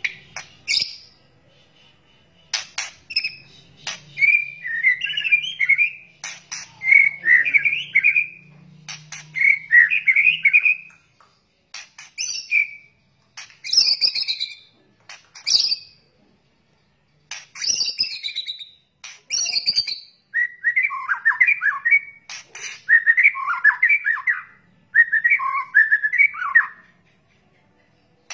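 White-rumped shama (murai batu) calling in a string of short phrases: rattling 'kretekan' chatter alternating with sharp high notes and clicks, with brief pauses between phrases.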